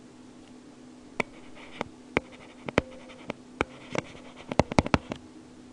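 Stylus writing on a tablet: a series of sharp taps and clicks as the pen tip strikes and lifts from the surface, bunched closely together a little before the end. A faint steady hum runs underneath.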